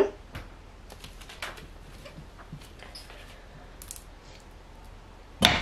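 A cold-process soap loaf pushed along the plastic base of a wooden wire soap cutter, then a bar sliced off with the wire, with faint scrapes and light clicks. A sharp knock comes near the end.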